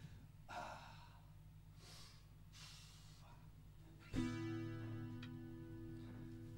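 Acoustic guitar: a chord is struck once about four seconds in and left to ring, fading slowly. Before it there are only a few faint, breathy noises.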